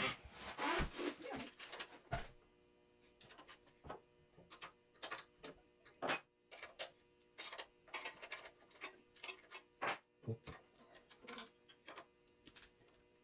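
Change gears and gear cover of a Grizzly mini lathe being handled by hand: irregular small clicks and clinks of metal parts, a little louder near the start.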